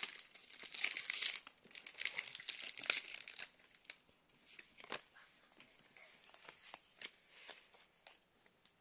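Foil Pokémon booster pack crinkling and tearing open for the first few seconds, then fainter rustling and light clicks as the cards are handled.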